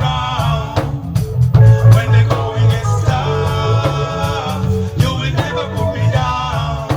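Live reggae band playing a lovers rock song, with a singer over bass, guitar and a steady beat.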